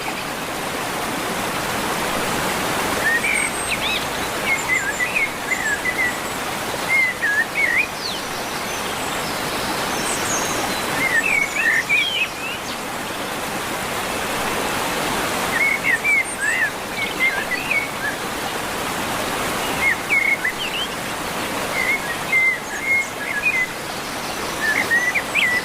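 Pet parrot chirping in short clusters of quick up-and-down notes every few seconds, over a steady hiss like running water.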